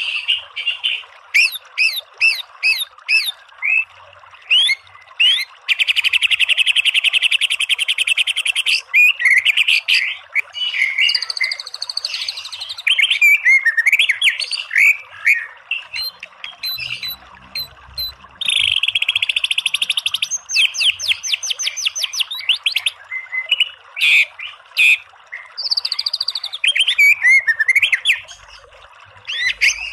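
White-rumped shama (murai batu) singing a varied string of clear whistles and sliding notes, broken twice by bursts of very rapid rattling 'tembakan' notes lasting two to three seconds, over a steady hiss of running water.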